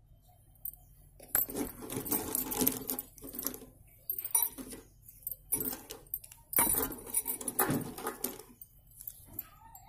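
Slate pencils clattering and clinking against each other as a hand rummages through a plastic basket of them and gathers a handful, with bangles on the wrist jingling. The rattling comes in several bursts, the longest in the first few seconds.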